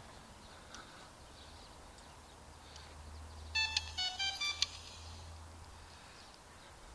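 A short electronic melody of quick beeping notes at changing pitches, like a phone ringtone, starting about three and a half seconds in and lasting about a second, over a faint low hum.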